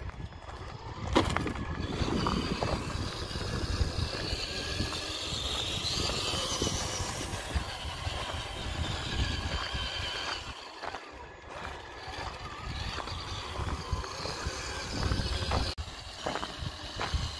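Traxxas TRX-4 RC crawler's electric drivetrain whirring as it drives, the pitch shifting with throttle, over a heavy, uneven rumble of wind on the microphone.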